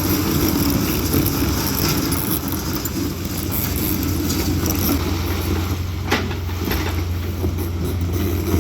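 Diesel engine of heavy construction equipment running steadily under load, with one sharp click about six seconds in.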